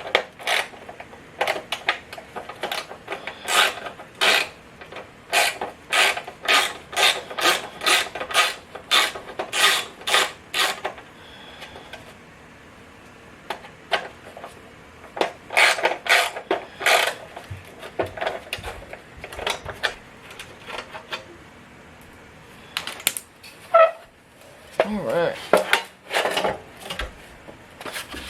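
Hand-tool work on the heater box's blower motor assembly: runs of quick, regular mechanical strokes, about two to three a second, coming in several spells with short pauses between.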